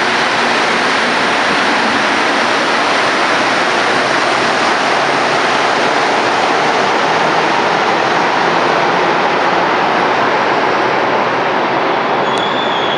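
Steady loud mechanical roar, with a thin high squeal setting in near the end.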